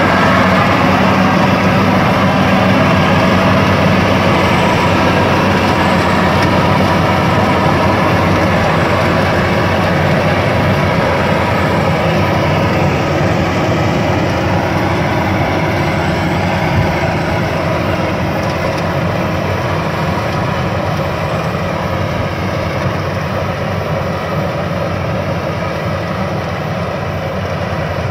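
Rice combine harvester's engine running steadily under load, easing off slightly in loudness over the second half.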